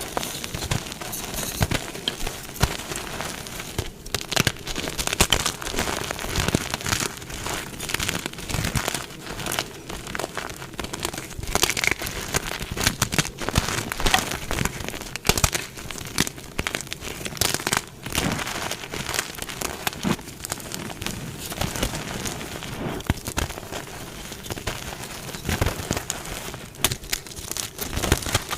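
Dyed gym chalk blocks being crushed, a dense run of crunching and crumbling crackles.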